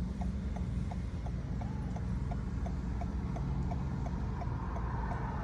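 A car's turn-signal indicator ticking steadily, about three ticks a second, over the low hum of the car's engine.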